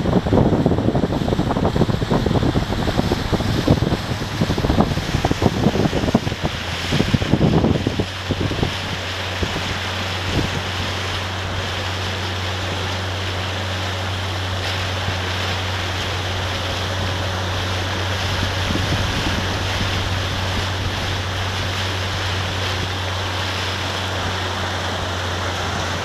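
Wind buffeting the microphone out on open water, gusty for the first eight seconds or so. It then settles into a steady hiss of wind and water with a constant low hum underneath.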